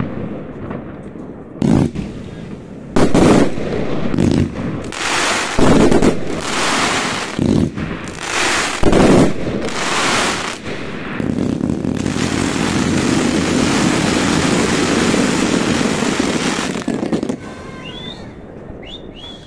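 Fireworks going off: a string of loud, sharp bangs about every second or two, then from about eleven seconds in a continuous dense rush of noise lasting about six seconds that cuts off suddenly.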